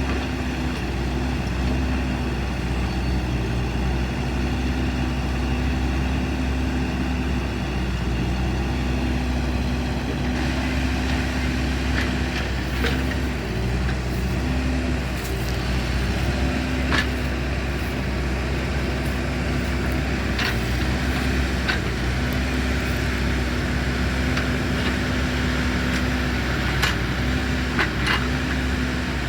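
A large engine running steadily with a deep rumble and a hum that comes and goes, with scattered sharp clicks from about ten seconds in.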